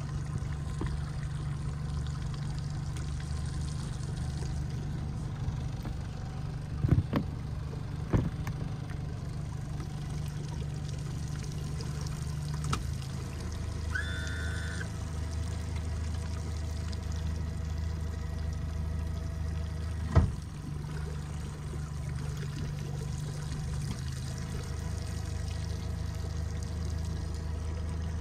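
Motorboat engine running at low speed with water splashing and trickling alongside; the engine note shifts about halfway through and again near the end. A few sharp knocks break in, the loudest about two thirds of the way in, and there is a short beep about halfway.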